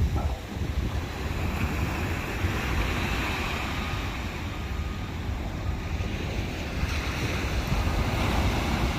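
Ocean surf breaking and washing onto the beach in a steady rush, with wind rumbling on the microphone.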